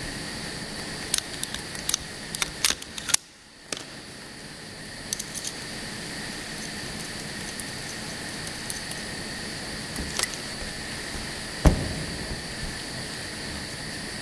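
Automatic through-hole component insertion machine running: a steady mechanical hum with a high whine, overlaid by quick irregular clicks and taps, most of them in the first five seconds. The hum drops out briefly about three seconds in, and there is one louder knock near the end.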